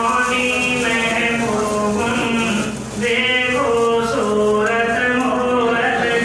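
A man chanting devotional verse in a drawn-out, melodic voice, holding long steady notes with a short pause for breath about three seconds in.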